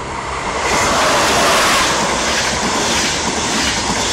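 Talgo 350 high-speed train passing close at speed: a rushing noise of wheels on rail and air that swells about half a second in and stays loud.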